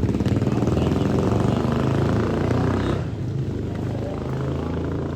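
A motor vehicle's engine running close by, loud at first and dropping off about three seconds in.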